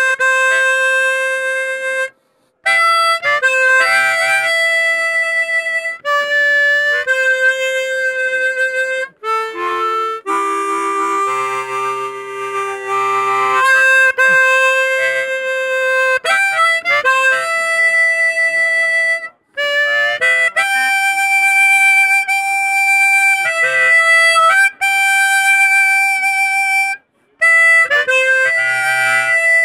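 Harmonica played into a microphone, a slow tune of long held notes with short breaks between phrases, at times sounding two or three notes together.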